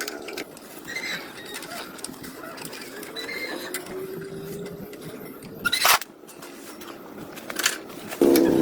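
Workshop handling noise: scattered clicks, taps and light mechanical rattling, with one sharp knock about six seconds in. Near the end a motor abruptly starts up and runs with a steady drone.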